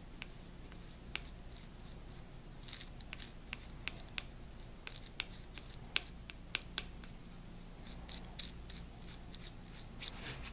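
Faint, irregular scratching and light ticks of a flat bristle paintbrush working dark paint onto a latex-skinned plastic bat wing, over a low steady hum.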